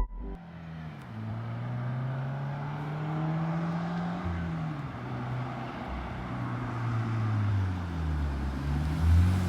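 2017 Subaru BRZ's flat-four engine running through a newly fitted Invidia aftermarket front pipe and mid pipe. The engine speed climbs over the first few seconds, eases off, and climbs again near the end.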